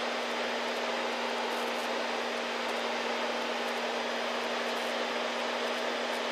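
Steady cabin drone of a Beechcraft V-tail Bonanza in level cruise: engine and propeller noise with rushing airflow and one unchanging hum.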